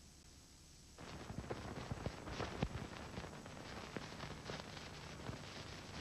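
Faint steady hum, then about a second in a run of irregular crackling clicks begins and carries on.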